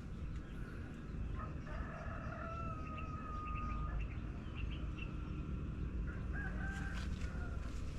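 A rooster crowing: one long, drawn-out crow starting about a second and a half in, then a shorter call near the end, over a steady low rumble.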